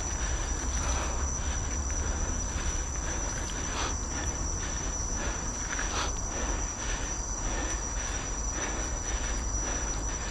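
Nukeproof Scout hardtail mountain bike riding over a dirt trail: tyre noise with irregular knocks and rattles from the bike, and a low wind rumble on the camera microphone. Under it runs a steady high-pitched insect drone.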